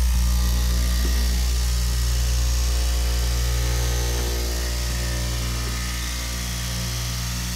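Electric straight-knife cloth cutting machine running steadily, its upright reciprocating blade cutting through a thick stack of fabric layers, giving a steady low motor hum.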